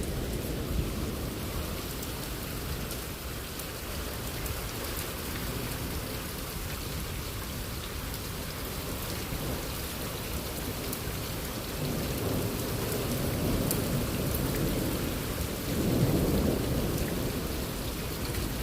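Low rumbling from high in the sky that swells twice in the second half, the second swell the loudest, over a steady hiss of rain. It sounds way up there, like rolling thunder.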